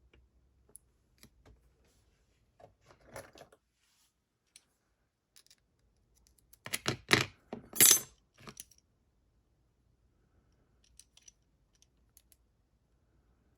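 Lock picks working in a Vachette HDI pin-tumbler lock: faint scattered metal clicks and scrapes, with a louder metallic rattling about seven seconds in.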